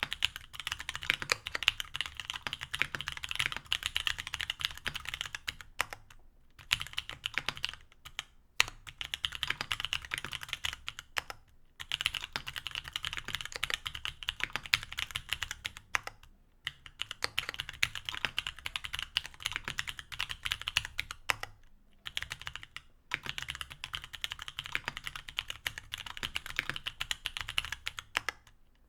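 Mechanical keyboard with stock C³Equalz X TKC Kiwi 67g tactile switches, an aluminium plate and GMK keycaps, typed on in fast runs of keystrokes broken by brief pauses every few seconds.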